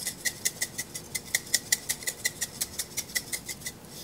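Glass spice jar of dried basil shaken over a bowl, ticking in quick, even clicks about five a second that stop shortly before the end.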